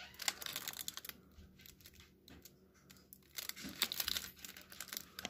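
Crinkling of a bagel dog's paper-and-plastic wrapper as it is handled, in two bouts of crackles: one in the first second, the other from about a second and a half to the end.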